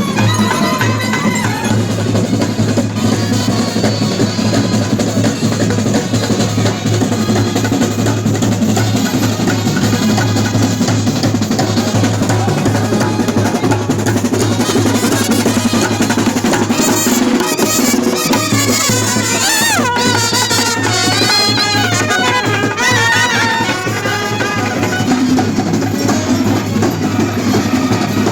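Loud drumming played as music, continuous and dense, with a wavering melody line over it for a few seconds past the middle.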